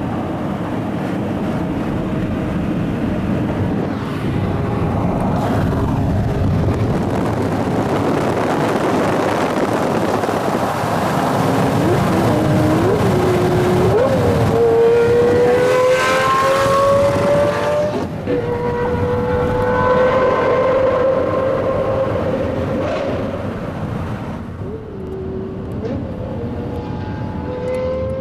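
Lamborghini Murciélago LP640 V12 accelerating hard through the gears, heard from a car following close behind over steady road and wind noise. After a few short rising blips, the engine note climbs for several seconds, drops sharply at a gear change, and climbs again.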